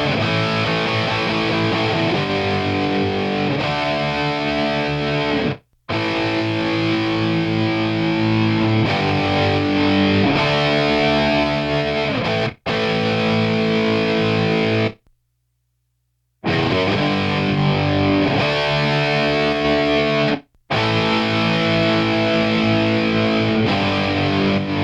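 Heavy Marshall-style distorted electric guitars playing power chords, raw tracks compressed on a bus by a Z&H Designs 1178 compressor/limiter. The chords ring on and stop dead four times, once for over a second.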